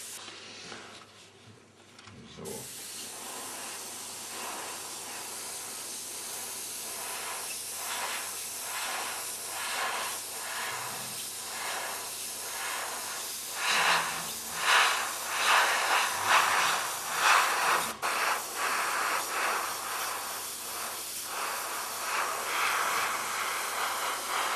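Airbrush hissing as compressed air and paint spray from its nozzle onto a plastic router cover, starting about two seconds in. The hiss swells and falls in repeated short strokes, strongest in the middle, with a single sharp click.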